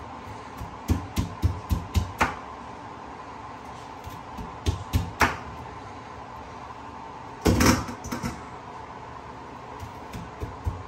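Chef's knife chopping corn on the cob against a wooden cutting board: sharp knocks of the blade through the cob onto the board, coming in quick groups, with a louder clatter about three-quarters of the way through. A faint steady hum runs underneath.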